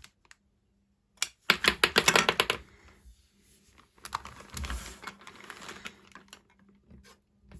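Marbles rattling down a Duplo-compatible marble run slide track: a fast run of sharp clicks about a second in, then a softer rolling rattle with a low knock about four seconds in.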